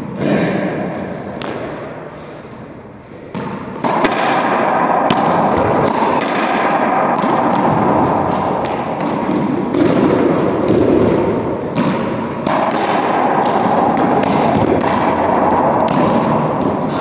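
Racquetball rally: the rubber ball cracks sharply off racquets, walls and floor, many hits in quick succession, each ringing in the enclosed court. A dense noisy wash runs under the hits and grows louder from about four seconds in.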